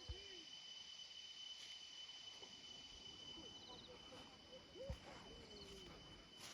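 Near silence: faint open-air field ambience with a steady thin high tone and a high hiss, faint distant voices, and two soft low knocks, one at the very start and one about five seconds in.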